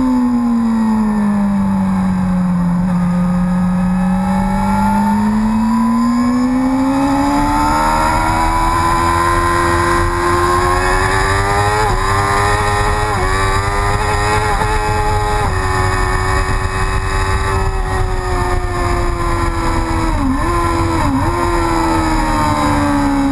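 Sport motorcycle engine at speed on a race track, heard through an onboard camera. The revs sink slowly for the first few seconds, then climb steadily, with brief dips in pitch twice around the middle and twice more near the end, over a steady rush of wind on the microphone.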